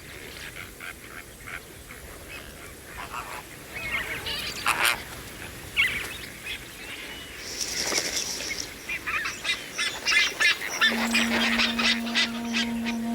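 Lesser flamingo colony calling: many short overlapping calls from a crowd of birds, growing busier as it goes on. A low held music note comes in near the end.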